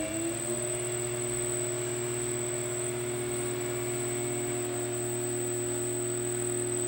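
Three-phase induction motor driven by a Siemens Sinamics V20 inverter, its hum rising in pitch as it ramps up to a 20 Hz setpoint, then levelling off about half a second in to a steady hum, with a steady high whine above it.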